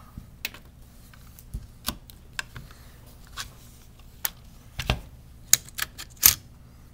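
Stag Arms left-handed AR-15 being taken apart by hand: scattered sharp metal clicks and clacks, the loudest a little after halfway and near the end, as the charging handle and bolt carrier are worked out of the upper receiver.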